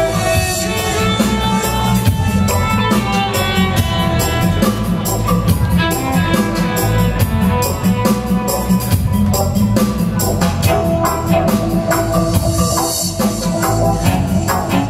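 Live electronic music played from MIDI keyboards and laptops: a steady run of sharp percussive hits over a heavy bass and sustained tones.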